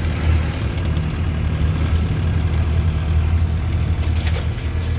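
Diesel engine of a converted bus motorhome running with a steady low drone, with a brief clatter about four seconds in.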